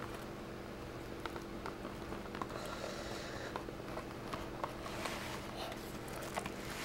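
Cardboard box and plastic wrapping handled by hand: scattered small clicks and taps, with a short rustle about five seconds in as the plastic-wrapped model is drawn out, over a steady low electrical hum.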